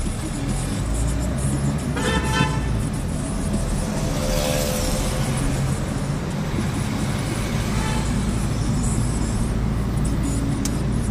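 Steady engine and road rumble heard from inside a car in city traffic. A car horn toots briefly about two seconds in, and a lower tone sounds around four to five seconds.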